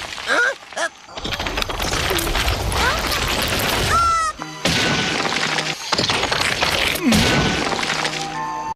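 A run of crashing, rumbling stone-breaking sound effects spliced together with abrupt cuts, over music, with a few short whistling pitch slides, one of them falling about seven seconds in. The sound cuts off suddenly at the end.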